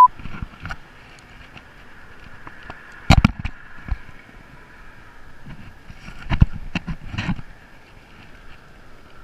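Wind hiss and handling noise on a body-worn camera's microphone, broken by a few sharp thumps, one about three seconds in and two more between six and seven and a half seconds in.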